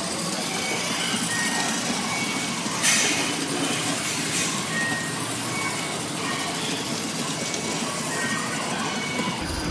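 Battery-powered Plarail toy trains running on plastic track, a steady whirring, clicking clatter, with one brief louder clatter about three seconds in.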